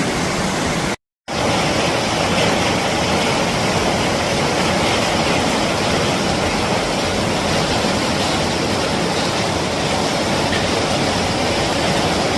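Heavy tropical rain pouring down steadily as a dense, even hiss. It cuts out for a moment about a second in, then carries on.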